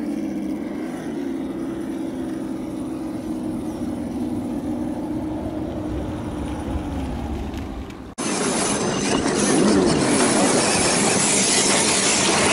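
A steady whine from a radio-controlled crawler's electric motor and gears, dipping slightly in pitch near the end. About eight seconds in, a sudden cut gives way to a louder, even rushing noise.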